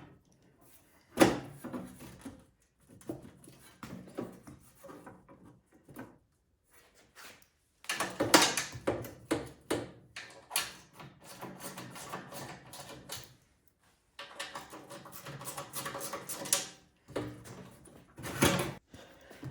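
Irregular clinks, clicks and scrapes of hand tools and metal parts as the friction disc is worked loose and slid out of a snowblower's drive. They come in scattered bursts with short quiet gaps.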